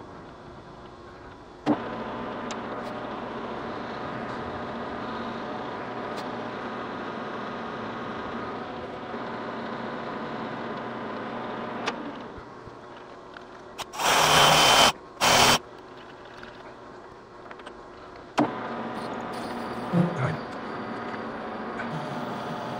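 Metal lathe running with a steady hum while a parting tool cuts off a threaded nut from the spinning stock. The running sound drops partway through, two loud rushing hisses come close together (the first about a second long), and the lathe runs again near the end with a few clicks.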